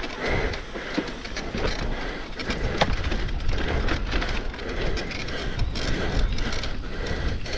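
Electric mountain bike rattling down a rough dirt trail: tyres rolling over roots and ruts, with frequent irregular knocks from the frame, chain and suspension over a steady low rumble.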